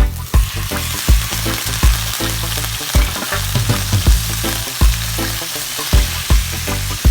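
Food sizzling and frying in a hot pan, a dense steady sizzle over background music with a steady beat.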